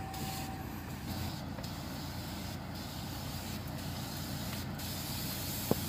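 Engine-driven pressure sprayer pump running steadily, with the hiss of the spray nozzle misting grape bunches, the hiss dropping briefly several times as the spray is let off. A sharp click near the end.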